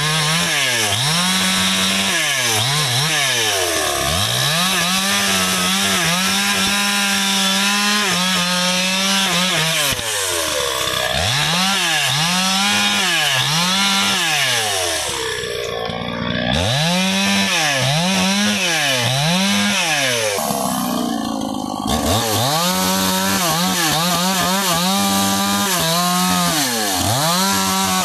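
A two-stroke chainsaw is cutting through a sengon log, held at full throttle for long stretches. Between cuts it revs quickly up and down several times, and twice it falls briefly to idle.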